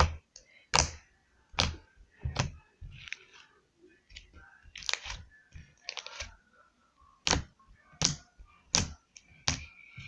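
Slime being squeezed and slapped by hand, making a series of sharp pops and clicks about once a second, with a pause partway through.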